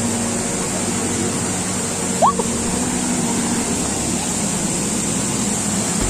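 Waterfall rushing steadily as white water pours down a stepped rocky cascade. A short rising squeak cuts through it just after two seconds in.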